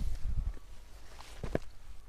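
A hiker's footsteps on a stony scrubland path: a few dull footfalls with some scuffing.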